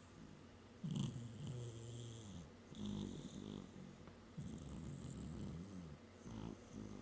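A sleeping domestic cat snoring, a rasping snore with each breath that comes round about every two seconds.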